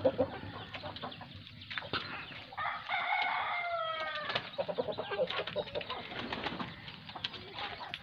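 Parrot-beak aseel rooster crowing once, one held call of about a second and a half that starts between two and three seconds in and falls in pitch at the end. Around it, wing flapping and scattered short knocks and scratches from the birds moving on the perches.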